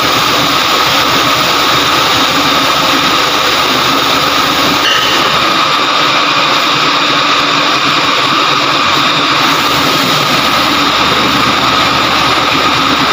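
Loud steady engine-like machinery drone with a constant high whine over a low rumble, unchanging throughout.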